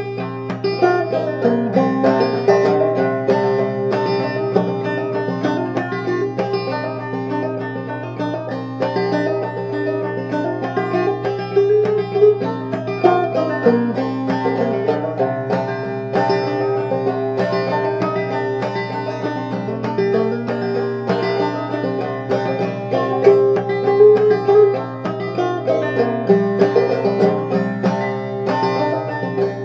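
Banjo played clawhammer style in double C tuning: a steady, unbroken stream of plucked notes and downstroke brushes, with no singing.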